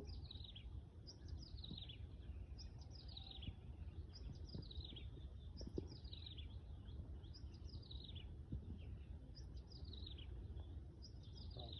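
A songbird repeating a short, high, downward-sliding chirp phrase about once a second, over a steady low rumble.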